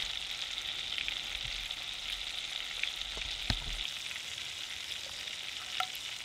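Pigeon breasts sizzling in garlic butter in a cast-iron Dutch oven lid: a steady frying hiss with a few small pops, the sharpest about three and a half seconds in.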